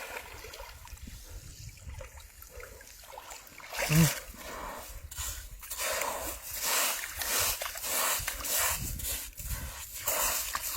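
Irregular splashing and sloshing of water during hands-on fishing, with a short exclaimed "oh" about four seconds in.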